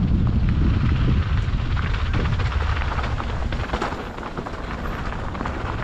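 Wind rushing over the microphone and the rattle of a mountain bike descending a dirt trail at speed, with many small clicks and knocks from the bike over rough ground. The rumble eases a little about two thirds of the way through.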